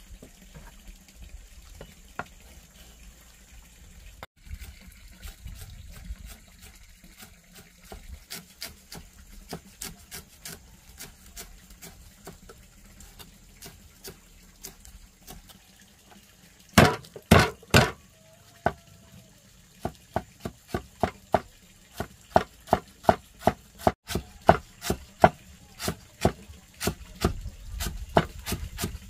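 A run of sharp knocks: sparse and light at first, a few loud strikes about halfway through, then steady at about two a second.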